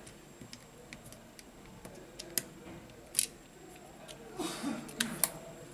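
Small clicks and taps of small parts being handled and seated in a smartphone's metal frame, a few of them sharp, with a short rustling scrape about four and a half seconds in.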